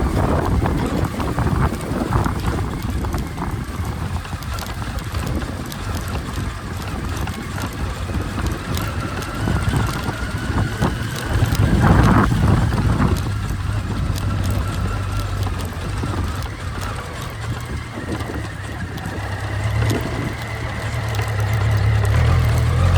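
Motorcycle on the move: the engine running under wind buffeting on the helmet or body microphone, with a louder swell about halfway through. Near the end the engine settles into a steadier low note.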